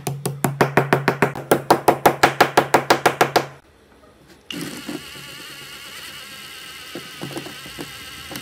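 Hammer tapping rapidly on a steel punch set against a small transformer's laminated steel core, about six blows a second for some three and a half seconds, with a ringing tone under the blows, knocking the core's laminations out. After a short pause a cordless power driver runs steadily with a high whine, pressing out more laminations.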